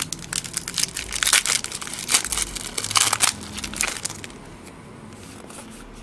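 Crinkling and crackling of a foil trading-card pack wrapper being handled and torn open, dense for about four seconds and then dying away.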